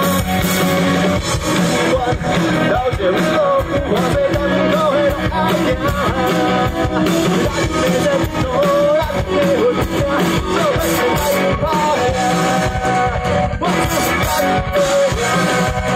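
A rock band playing live through a PA, with distorted electric guitars, bass guitar and a drum kit, and a man singing into a handheld microphone over them.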